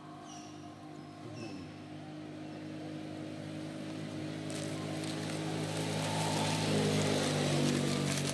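An engine running and growing steadily louder, as of a motor vehicle approaching, loudest near the end. A few short high chirps sound in the first second or so.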